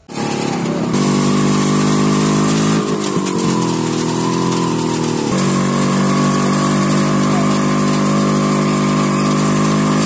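Motorcycle engine running steadily while riding. The engine pitch wavers and shifts about three seconds in, then holds steady again from about five seconds in.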